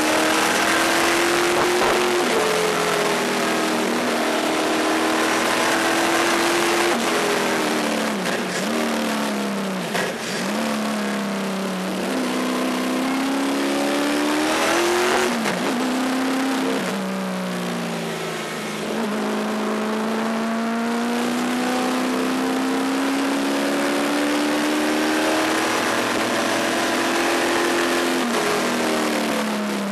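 A 700+ hp Pontiac Trans Am race car's V8, heard from inside the cabin while driven hard on track. The engine pitch climbs under acceleration and drops at each upshift, with braking and quick downshifts around a third of the way in and again about halfway.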